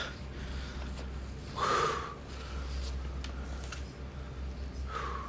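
A single sharp, breathy exhalation like a gasp or snort, about a second and a half in, over a steady low hum.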